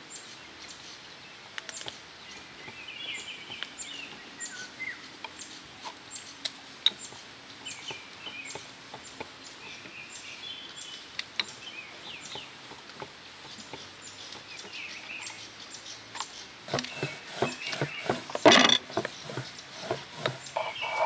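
Birds chirping, with a scatter of light clicks and knocks throughout. About seventeen seconds in comes a louder burst of clattering knocks.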